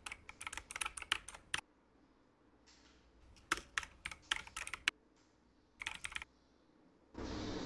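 Typing on a computer keyboard: three runs of quick keystrokes with pauses between them. Near the end a louder steady sound starts suddenly.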